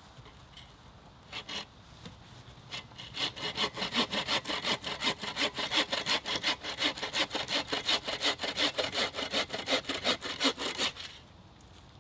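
Bow saw cross-cutting a freshly fallen silver birch log: a few light starting strokes, then fast, even back-and-forth rasping strokes from about three seconds in, stopping about eleven seconds in.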